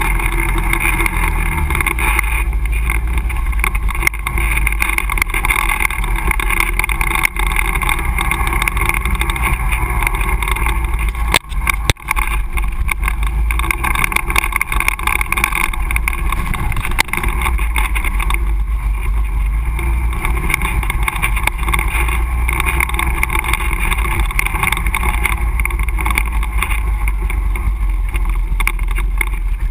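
Quad ATV's engine running steadily while riding a dirt trail, heard close from a camera mounted on the machine. The sound dips briefly twice about twelve seconds in.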